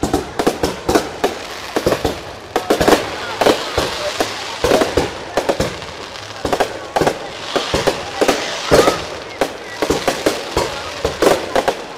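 Aerial fireworks bursting overhead: a dense, unbroken run of sharp bangs and crackling, several a second.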